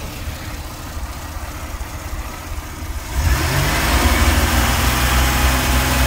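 A Chevrolet Astro van's 4.3-litre V6 idles, then is revved up about three seconds in and held at higher revs. It runs smoothly with a newly fitted fuel-injector spider assembly, no longer misfiring.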